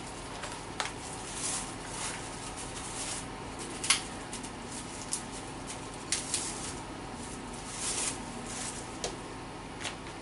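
Oil heating in an empty ridged grill pan on a gas burner: a steady hiss with scattered light clicks and pops, the sharpest about four seconds in.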